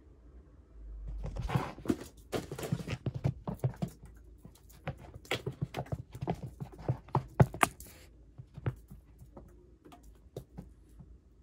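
A tabby cat running and pouncing on carpet: a quick, uneven run of paw thumps and scuffs starting about a second in and stopping near eight seconds, with a few lighter taps after.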